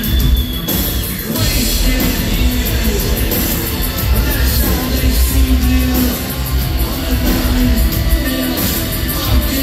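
An industrial band playing live, heard from within the crowd: heavy electronic bass and beat, held synth tones and a singer's vocals.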